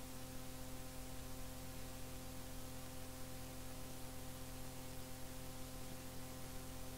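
Faint steady mains hum with hiss from a cassette recording, with no programme sound.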